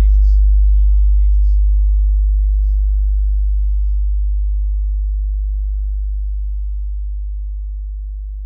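A deep, steady sub-bass sine tone from a bass sound-check track, slowly fading out. An echoing vocal sample dies away over the first couple of seconds.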